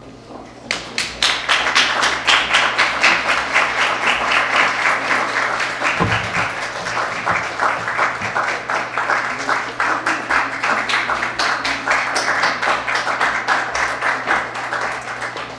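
Audience applauding: a dense run of many hands clapping that starts under a second in and tapers off near the end.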